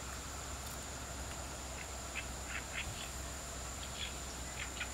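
Riverside insect drone: a steady high-pitched whine from insects, with about eight short, faint animal calls scattered through it and a low rumble underneath.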